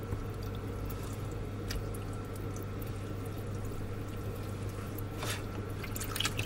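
Hands working raw chicken pieces in a bowl of water, with soft splashing and dripping and a few slightly louder splashes about two and five seconds in. A steady low hum runs underneath.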